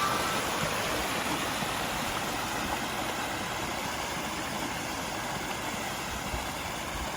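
Water of a pondless waterfall spilling steadily over its rocks, an even rushing splash.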